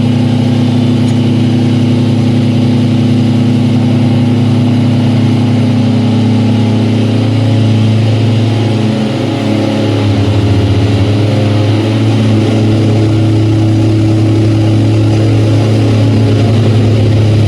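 Loud, steady hum of heavy electric machinery in a precast concrete slab plant, made of several low tones over a noisy background. About nine seconds in the tones shift and settle at a new pitch.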